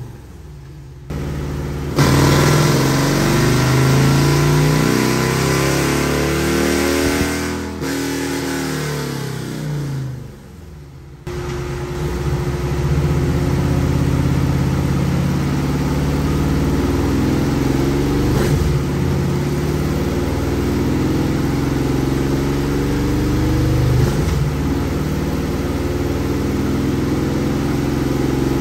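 2023 Harley-Davidson CVO Road Glide's Milwaukee-Eight 121 V-twin running on a chassis dyno through a Sawicki Speed aftermarket exhaust. It revs with the pitch swinging up and down for the first several seconds, drops off briefly twice, then runs steadily under throttle for the rest.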